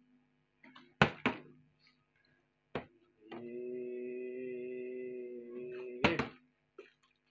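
A small plastic water bottle knocking on a tiled floor: two sharp knocks about a second in, another near three seconds, and a loud double knock near six seconds. Between them a steady humming tone is held for about three seconds.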